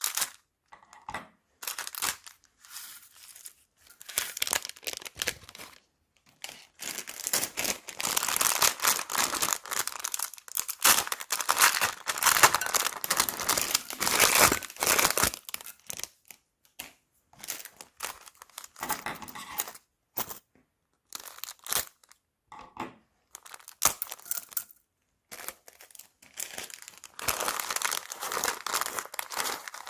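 Crinkling and tearing from slime, clay and plastic bags being worked by hand. It comes in bursts with short pauses, busiest through the middle stretch and again near the end.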